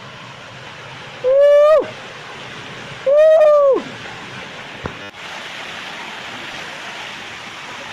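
Two loud, held whooping calls, each about half a second long and ending in a falling drop, over the steady rush of a waterfall that grows louder about five seconds in.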